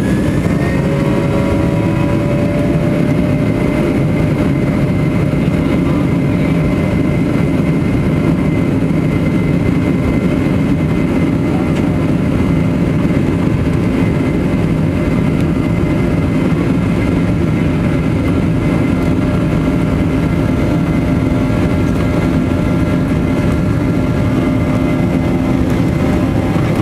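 Boeing 737's CFM56 jet engines heard from inside the passenger cabin as the plane rolls along the ground: a steady engine roar with several whining tones that rise briefly at the start and then hold level.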